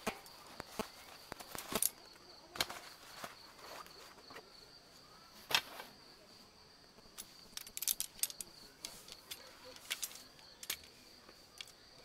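Metal poles of a folding camp furniture frame clicking and clattering as the folded legs are handled and opened out, with one sharper click about halfway and a quick run of rattles shortly after. A steady high insect trill goes on behind.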